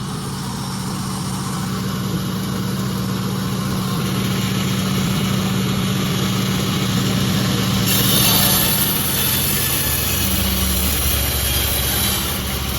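Sawmill machinery running with a steady engine hum. About eight seconds in, a louder high hiss joins it as the saw blade cuts through jackfruit wood.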